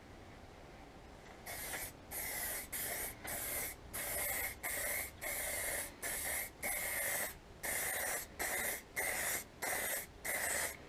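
Aerosol spray can of clear lacquer spraying in short bursts, about fourteen passes of around half a second each with brief pauses between, starting about a second and a half in.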